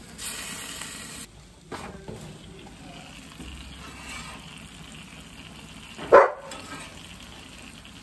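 Chopped steak, onions and cheddar sizzling on the hot griddle plate of a gas grill, a brighter hiss in the first second, then a softer steady sizzle. About six seconds in there is one short, sharp, loud sound.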